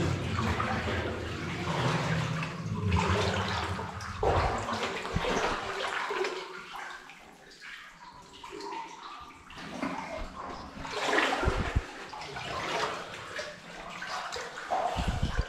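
Water sloshing and splashing around legs wading through a flooded mine adit, in uneven surges: busier in the first few seconds, easing off in the middle, and picking up again near the end.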